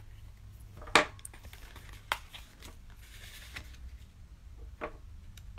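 Scissors snipping through a strip of vinyl, one sharp snip about a second in, then a few light clicks and rustles as the small vinyl strip is handled and pressed down onto card.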